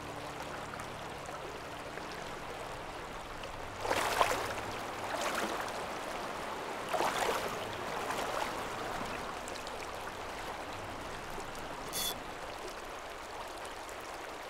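Shallow river current rushing over rocks in a steady wash, with louder splashes about four and seven seconds in from someone wading through the water in waders. A brief high chirp sounds near the end.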